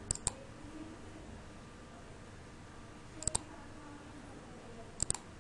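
Computer mouse button clicks: three quick double clicks spaced a few seconds apart, over a faint steady room background.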